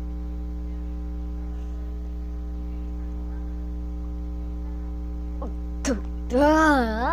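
Steady electrical mains hum. About six seconds in there is a short click, then a girl's loud, wavering groan of disgust at a mouthful of raw egg.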